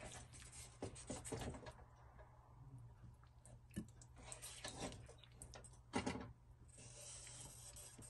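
Spatula scraping a pan and tapping onto a plate as stir-fried chicken and vegetables are served out: faint, scattered scrapes and light knocks, the loudest about six seconds in, over a low steady hum.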